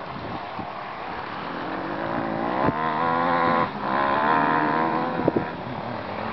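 Distant enduro dirt bike engine revving as the rider climbs the hillside track. Its note builds for about a second, drops out briefly, then pulls again for over a second before fading.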